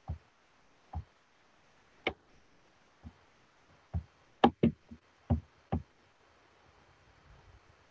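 Irregular dull knocks and taps close to the microphone, about ten in all, the loudest a quick pair about four and a half seconds in: hands working a computer keyboard and mouse on a desk.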